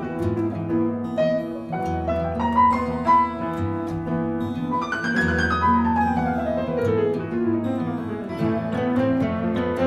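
Jazz piano and guitar duo playing, with a long descending run on the piano about five seconds in over a held bass note.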